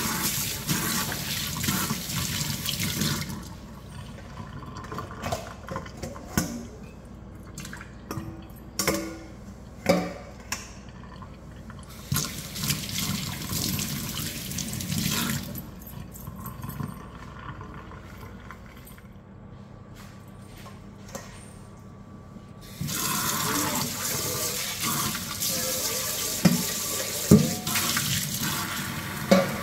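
Kitchen tap running into a stainless steel sink as raw beef is rinsed by hand, water splashing over hands and meat. The flow is much quieter through the long middle stretch, then runs loud again near the end, with a few sharp knocks as a metal colander and bowl are handled under the stream.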